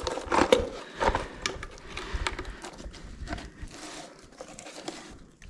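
Irregular crunching and knocking of footsteps on loose rubble underground, heaviest in the first couple of seconds and thinning out toward the end.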